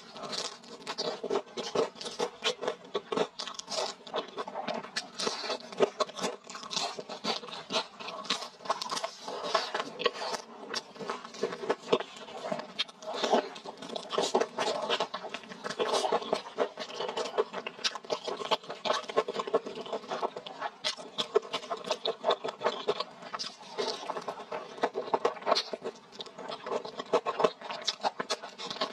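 Close-miked chewing of crispy deep-fried breaded skewers: a dense, irregular run of crunches and mouth clicks as the crust is bitten and chewed.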